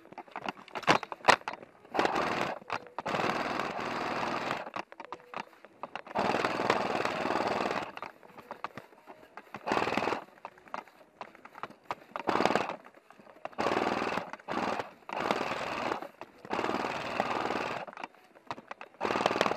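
Airsoft electric gun firing full-auto bursts, about eight of them, from short half-second squirts to strings of nearly two seconds.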